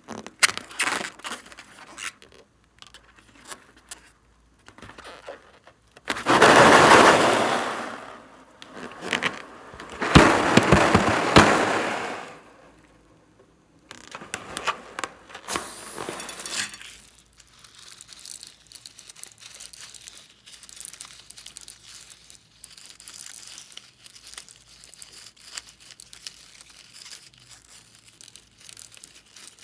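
Slime being handled and pressed, crackling and clicking, with two louder, longer squelching stretches about six and ten seconds in.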